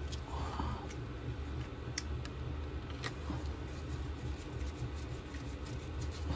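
A few faint, sharp metallic clicks and taps from handling sump-plate bolts and a hand tool, over a steady low background hum.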